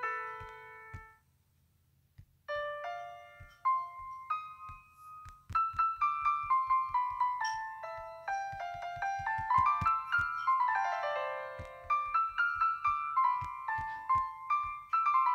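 Background piano music: a melody of quick single notes, each fading after it is struck. There is a pause of about a second shortly after the start.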